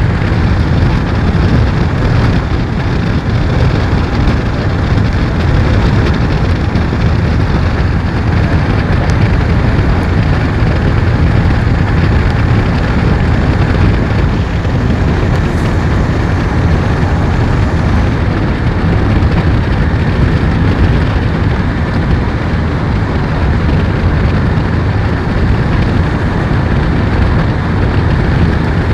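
Steady rain with a heavy, unbroken low rumble under it.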